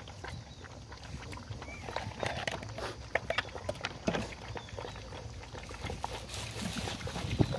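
Several puppies lapping milk from a plastic feeder dish: a quick, irregular patter of wet licks, slurps and small clicks of tongues and muzzles against the plastic. A sharper knock comes near the end.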